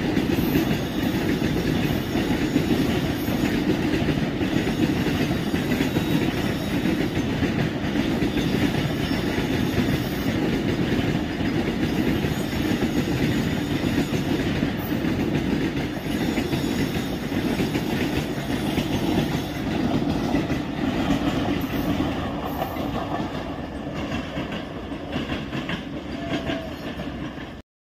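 A goods train of covered box wagons running past, its wheels clattering steadily over the rails. The noise eases a little near the end, then cuts off suddenly.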